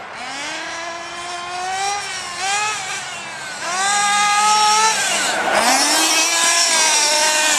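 Reely Overheater RC monster truck's small nitro engine revving in repeated bursts, the pitch climbing with each blip of throttle. About five seconds in there is a short rushing noise, then the engine holds high revs with a steadily rising pitch as the truck speeds past close by.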